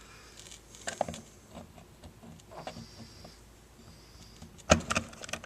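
Light clicks and clinks of automatic-transmission overdrive clutch parts and bearings being handled and slid together by hand, with a sharper cluster of knocks near the end.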